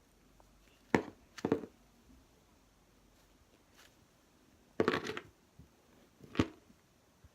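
Squishy toys being handled: four short rustling and tapping handling noises, the longest and most rustly a little under five seconds in.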